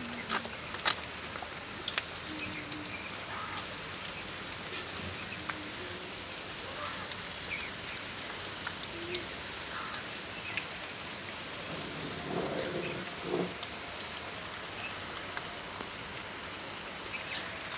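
Heavy rain falling steadily, with sharp individual drops landing close by now and then, most of them in the first second or so.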